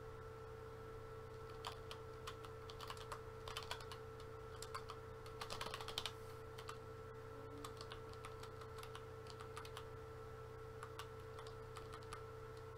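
Faint computer keyboard typing as a line of script is retyped. Keystrokes start about two seconds in and come in quick runs that are busiest around five to six seconds, then thin out to a few scattered taps.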